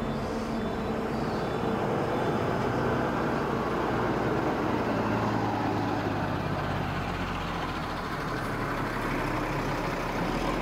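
Engines of several road vehicles running steadily at close range, a lorry's among them.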